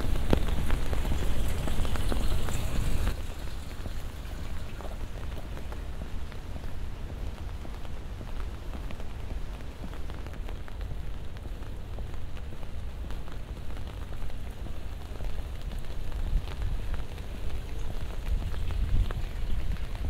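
Steady rain falling, with scattered drips. About three seconds in it drops sharply to a fainter level and carries on more quietly.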